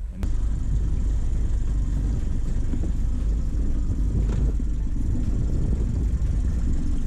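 Mercury 9.9 outboard motor on an inflatable boat idling with a steady, low running sound.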